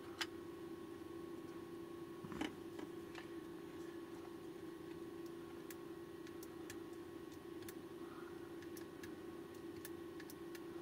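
A steady low hum with two light clicks, one just after the start and one about two and a half seconds in, and faint scattered ticks throughout.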